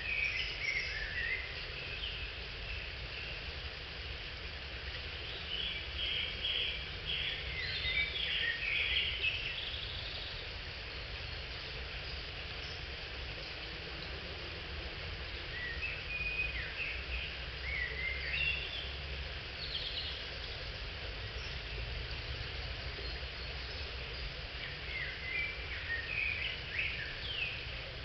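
Woodland birds singing short chirping phrases every few seconds over a steady background hiss and a low rumble.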